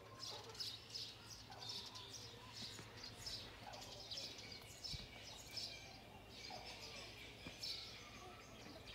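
Small birds chirping, a faint run of short high chirps repeating about twice a second, over a steady low hum.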